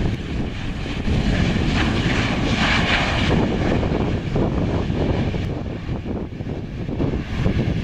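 Jet engines of a Boeing 737-700 on its landing, a steady rushing noise with a higher hiss that swells about three seconds in and then eases off, mixed with wind buffeting the microphone.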